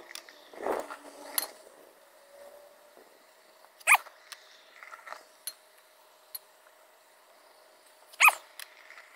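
Diatomaceous earth filter powder poured from a glass measuring cup into a pool skimmer, with two short sharp sounds about four seconds apart over a faint steady hum.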